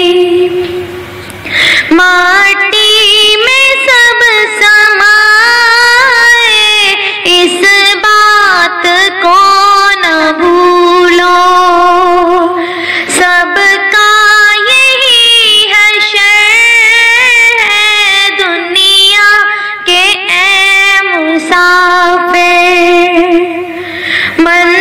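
Background music: a female voice singing a slow melody with long held notes and gliding pitch.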